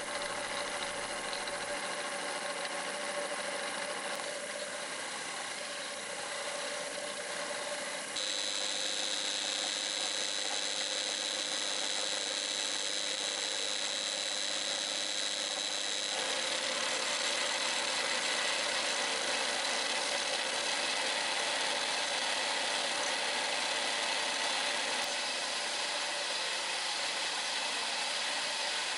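Sensitive precision drill press running steadily at speed, its motor and spindle giving a high whine as a very small bit drills a coin. The sound changes about eight seconds in, when a strong high whine comes in, and shifts again about sixteen seconds in.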